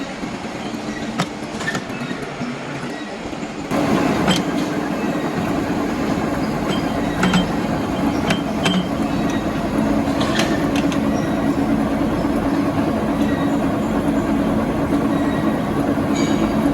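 Metal lathe running steadily, with scattered sharp clinks; about four seconds in it gets louder and noisier and stays so.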